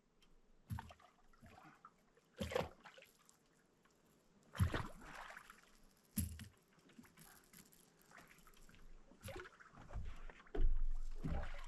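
Irregular knocks, bumps and water splashes against a small fishing boat while a hooked flathead catfish is being fought, with a longer, louder stretch of splashing near the end.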